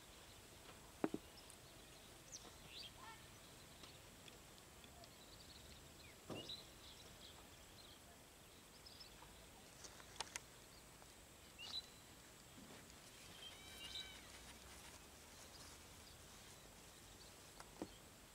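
Near silence outdoors, with scattered faint bird chirps and a few sharp clicks, the loudest about a second in.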